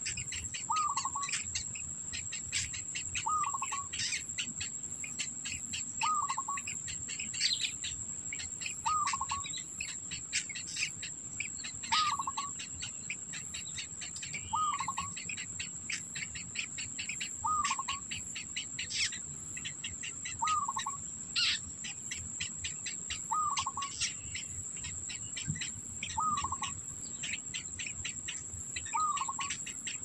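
A bird repeats a short call about every three seconds, eleven times in all, over a steady high-pitched insect drone, such as a cricket or cicada, and scattered faint ticking.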